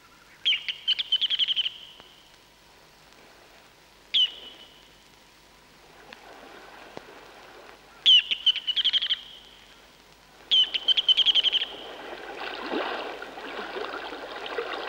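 Ruddy turnstone calling: four bursts of high, rattling chatter, each a sharp note running into a fast stuttering series, one of them cut short after the first note. A soft, steady rushing noise comes in near the end.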